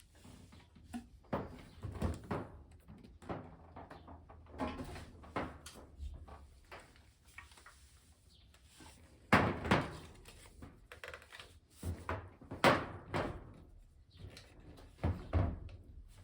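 A series of irregular knocks and clunks, as of hard objects being handled and set down. The two loudest come about nine and a half and twelve and a half seconds in.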